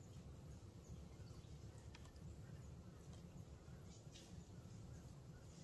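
Near silence outdoors: a faint steady low rumble of wind or microphone noise, with a few faint, brief high-pitched sounds at about two and four seconds in.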